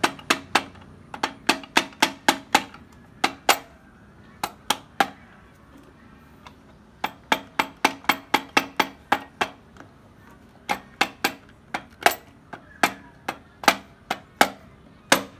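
Hammer tapping repeatedly on a Honda EX5 engine's crankcase, dozens of sharp strikes in runs of quick blows with a short pause about halfway, driving the case halves together over the new gasket.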